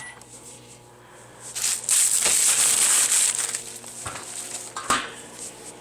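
Microwave oven running with a steady hum. About one and a half seconds in, a loud crinkling rustle lasts about two seconds. A short knock comes near the end.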